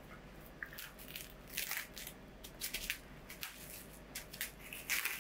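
Plastic cling film crinkling in short, irregular rustles as hands fold it around a ball of gingerbread cookie dough.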